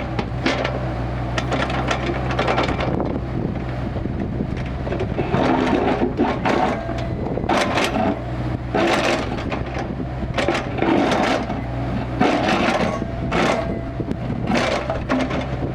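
Kubota KX161-3 mini excavator's diesel engine running steadily, with repeated scraping and crunching as the bucket digs and moves soil.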